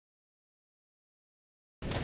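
Dead silence, then a rainstorm sound effect cuts in abruptly near the end: an even hiss of rain with fine droplet ticks.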